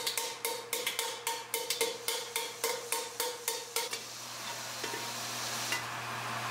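Ball-peen hammer striking a steel helmet skull over a steel bar stake, about four blows a second with a ringing note, shaping the bascinet. About four seconds in the blows stop and a steady hiss with a low hum takes over.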